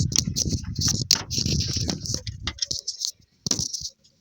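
Rattling and clicking of a screwdriver working at a plastic wiring connector on an alternator, dense for about two and a half seconds, then one short burst near the end before it goes quiet.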